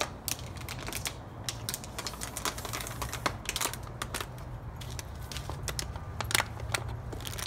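Husky puppy chewing a plastic water bottle: the plastic crackles and clicks irregularly, several times a second.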